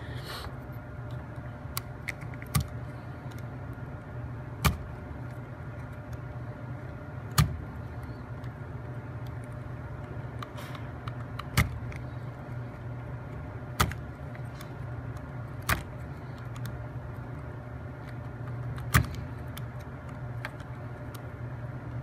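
A utility knife blade cutting through wooden toothpicks one at a time, each cut ending in a sharp snap, about eight snaps every two to three seconds, over a steady low background hum.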